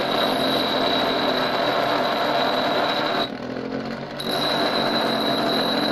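A 150 mm, 240 W bench grinder running with a piece of metal held against its spinning abrasive wheel, giving a steady grinding noise with a high whine. A little past halfway the metal is lifted off for about a second, leaving only the motor and wheel spinning, then grinding resumes.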